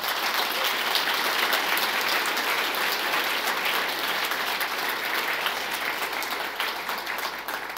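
Audience applauding, a steady clapping that thins out and fades near the end.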